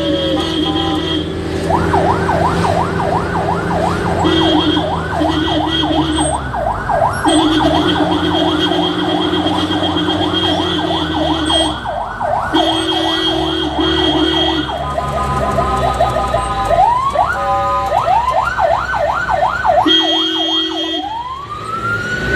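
Ambulance siren running mostly in a fast yelp of about four sweeps a second, changing near the end to a slow rising and falling wail. Long horn blasts sound on and off over it, with the vehicle's engine running underneath.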